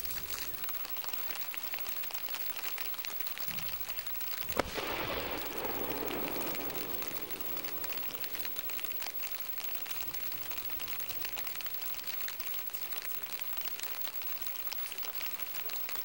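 Underwater detonation of three Bangalore torpedo tubes at about 30 feet depth: a single sharp report about four and a half seconds in, followed by a swelling rush of water as the plume collapses. A pattering hiss of spray falling back onto the water follows.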